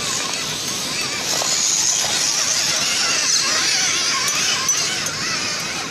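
Small electric motor and gears of a radio-controlled scale off-road truck whining, the pitch wavering up and down with the throttle, over a steady hiss.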